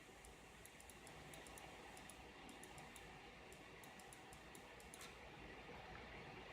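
Keys of a Reidea mechanical keyboard being pressed, a run of faint, irregular clicks that stops about five seconds in.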